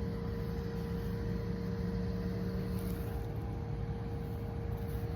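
Steady machine hum over a low rumble, unchanging throughout.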